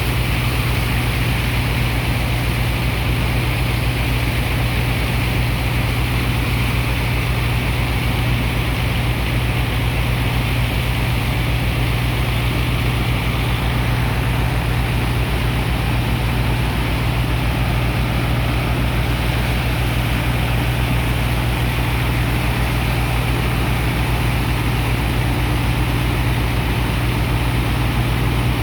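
Dredger's engine and sand pump running steadily: a constant low drone with an even hiss over it.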